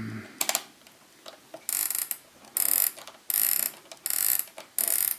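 Ratcheting of a 1970s Toshiba flip clock's setting mechanism as its knob is twisted in five short goes, each a rasping burst about half a second long.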